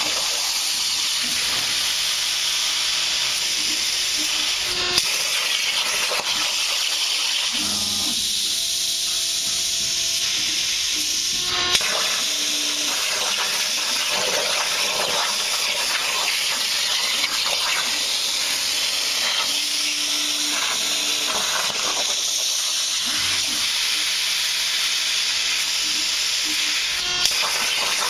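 CNC plasma cutter's torch hissing steadily as its arc cuts steel plate, with a few sharp clicks.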